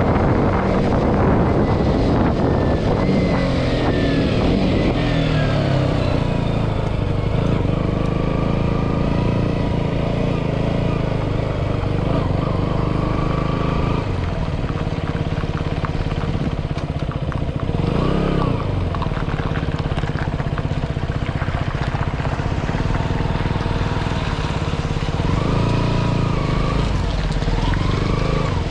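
KTM Duke 125's single-cylinder engine running under way, with wind rushing over the microphone. The engine note rises and falls a few times, around the middle and again near the end.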